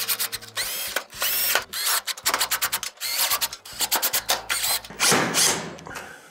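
Cordless drill/driver running in repeated short bursts to drive screws into the sheet-metal rear panel of an electric range. Its motor whine rises and falls with each burst, with a longer run about five seconds in.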